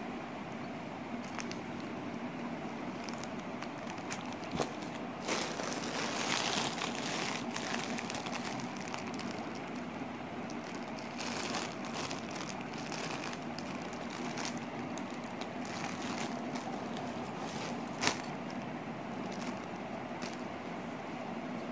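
Plastic packaging and clothes rustling and crinkling as they are handled, in irregular bursts with a sharp click near the end, over a steady low background hum.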